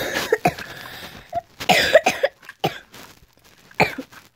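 A girl coughing into her hand, a fit of several short coughs in a row.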